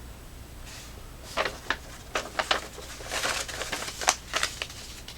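Packaging being handled while unboxing: a run of short crinkles, rustles and clicks, like plastic wrapping being pulled open, starting about a second and a half in.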